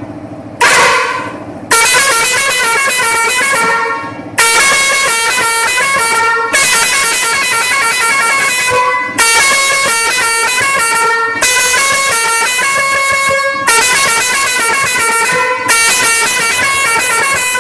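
Electric air-pressure musical horn with bugle-style trumpets, played loud, sounding a tune. It goes in phrases of stepped notes about two seconds long, each starting suddenly, with a brief drop just after the start.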